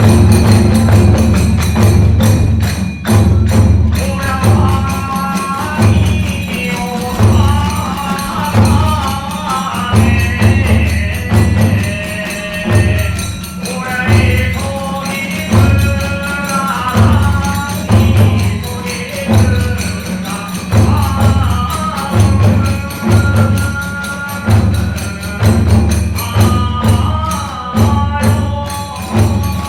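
Kagura festival music: a large taiko drum beating a steady rhythm of about one stroke a second, with small drums, clashing tebiragane hand cymbals and a bamboo fue flute playing a shifting melody above.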